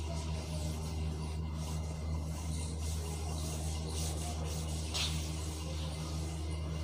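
Cloth wiping chalk off a chalkboard: soft rubbing strokes over a steady low hum.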